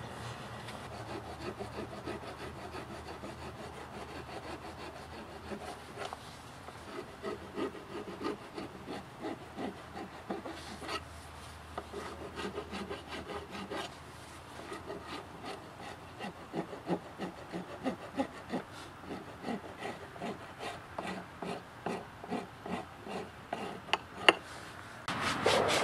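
A hand abrasive rubbing back and forth on the edge of a round wooden chopping board clamped in a vise: rhythmic scraping strokes, about two a second, which become distinct about six seconds in. Near the end a louder, steady sanding noise takes over.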